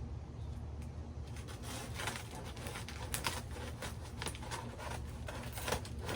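Cardboard packaging being handled: scattered light clicks and rustles, thicker from about two seconds in, over a steady low rumble.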